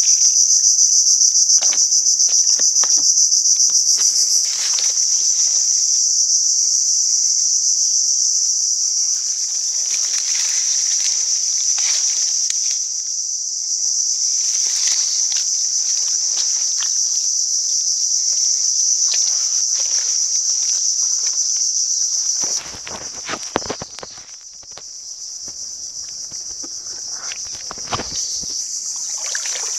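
A steady, high-pitched chorus of insects buzzing without a break. Scattered knocks, rustles and footsteps of someone pushing between mangrove trunks over mud sound through it, heavier in the last quarter, where the buzz dips a little.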